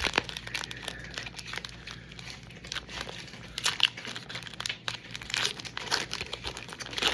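Foil Pokémon TCG booster pack being torn open and crinkled by hand, with irregular crackles and tearing.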